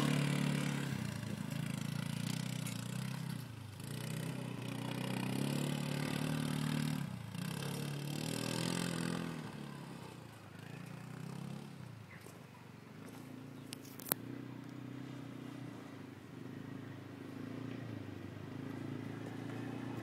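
Massimo MSU-400 UTV's 400cc engine running as the vehicle drives over a muddy dirt track. It is loud at first, fades as the UTV moves off, and grows a little nearer again toward the end. A single sharp click comes about two-thirds of the way through.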